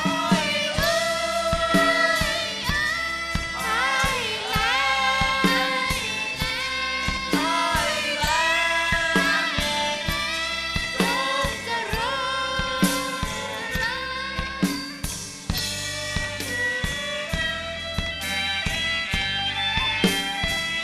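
Live band music: a group of women singing a Thai song together in unison, backed by a drum kit, band instruments and a violin.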